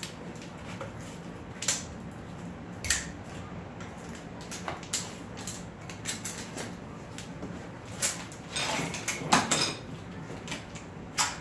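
Metal engine parts and tools clinking and knocking as they are handled, in separate sharp clanks with a busier run of them about eight to nine and a half seconds in.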